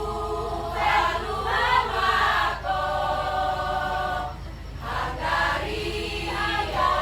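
Choir singing, with several voices holding a long chord about three seconds in, a short break, then the singing going on.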